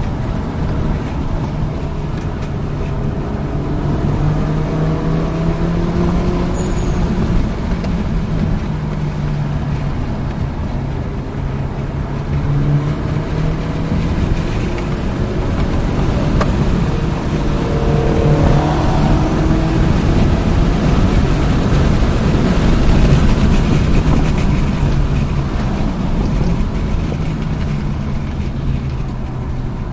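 Hyundai Elantra N's turbocharged four-cylinder engine under hard acceleration on track, its pitch climbing and dropping several times as it pulls through the revs and eases off, over steady road and wind noise.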